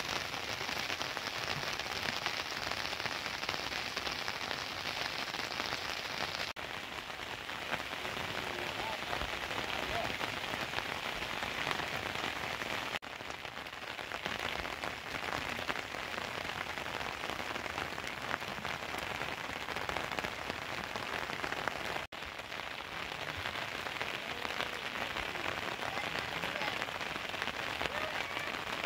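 Steady rain falling, an even hiss of drops, with three abrupt brief drops in level where the recording is cut.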